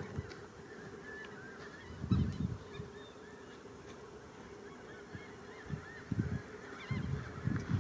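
Wild birds calling: many short, curving chirps throughout, with a few louder low honk-like calls about two seconds in and again near the end.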